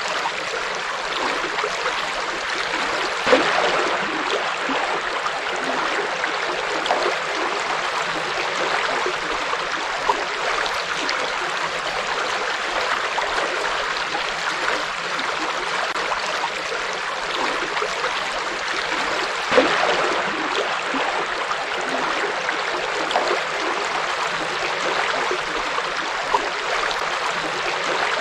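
River water flowing steadily with a constant rush, broken by a couple of brief louder splashes, one about three seconds in and another about two-thirds of the way through.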